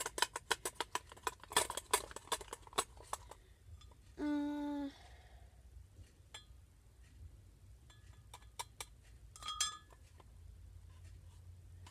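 A spoon clicking and clinking against a small container while stirring slime, rapid and busy at first, then only an occasional tap. About four seconds in, a brief steady pitched tone lasting under a second is the loudest sound.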